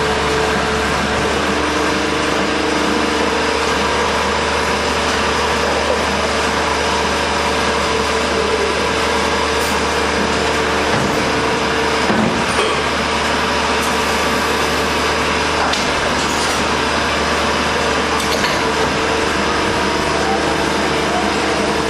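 Factory machinery running: a steady, loud drone with a constant hum and a few faint clicks.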